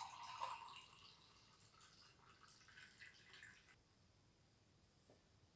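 Sikhye (sweet rice drink) poured from a bottle into a glass mug, a stream of liquid splashing as the mug fills. It fades and stops about three and a half seconds in.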